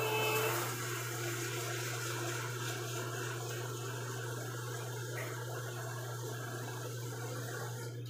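Kitchen tap running water steadily into the sink, stopping near the end.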